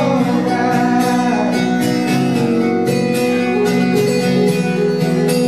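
Live acoustic guitars strumming a ballad, with a male voice holding the last sung word about a second in.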